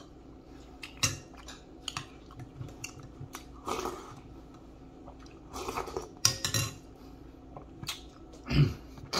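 Close-up eating sounds: a spoon clinking and scraping against a bowl, mouth noises while eating from the spoon, and chewing and biting on dried deer meat. These come as scattered short clicks and clinks with a few louder noisy bursts.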